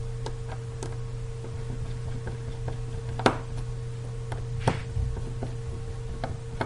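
Small screwdriver working out the tiny screws of an iPhone 4S's metal connector shield plate: scattered light metallic ticks and clicks, with two sharper clicks a little past the middle, over a steady low hum.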